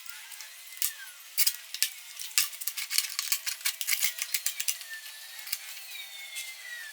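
Homemade angle-grinder-powered wood chipper running, its motor whine wavering in pitch, with a rapid clatter of sharp clicks as wood is shredded. The whine falls in pitch near the end.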